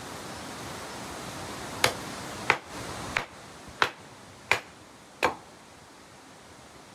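A short chopping blade knocking into a stick of wood, splitting it into kindling: six sharp knocks about two-thirds of a second apart.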